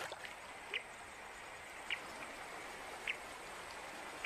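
Faint riverbank ambience: water flowing steadily, with a short high chirp from a small animal repeating about once a second, four times.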